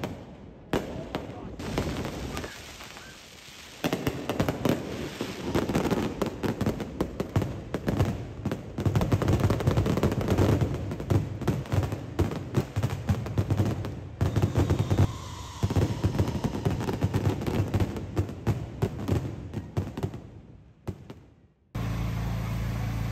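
Aerial fireworks exploding in rapid, overlapping bangs and crackles, densest through the middle and dying away near the end. Just before the end, an abrupt switch to a steady low rumble.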